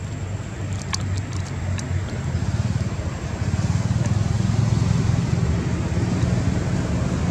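A low motor rumble, growing louder after about three seconds, with a few faint clicks about a second in.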